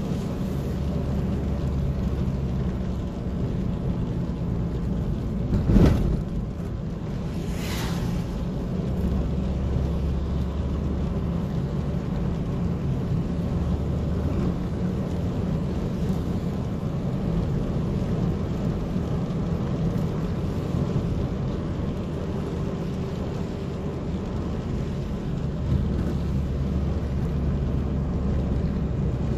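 Inside a car's cabin on a wet road in the rain: steady low drone of the engine and tyres on wet pavement. A sharp thump comes about six seconds in, and a shorter, higher swish follows about two seconds later.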